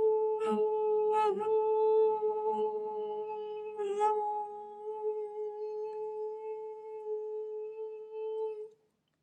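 A man's voice holding one long, steady, fairly high sung tone, with a few brief breathy breaks, ending abruptly near the end.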